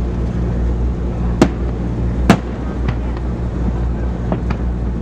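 Fireworks going off: two sharp loud cracks about a second and a half and two seconds in, then a few fainter pops, over a steady low rumble and wind on the microphone.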